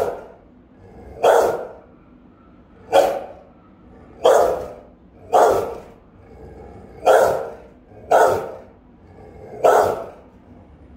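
An adult Rottweiler barking: about eight loud, single barks roughly a second or so apart, stopping near the end. This is a house-guarding dog's alert barking, with a short echo off the tiled room after each bark.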